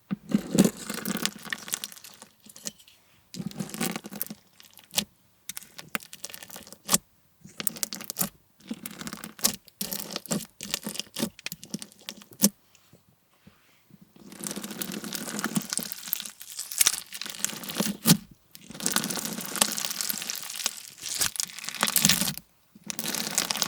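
Slushie bead slime (clear slime packed with small plastic pellets) being worked by hand, giving a dense crackling and popping. It comes in irregular stretches with brief pauses between them, and the stretches run longer and thicker in the second half.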